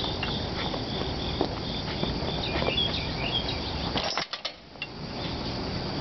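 Insects chirping in a steady, rapid high pulse over a constant outdoor rush. About four seconds in, the background briefly drops out and sounds muffled.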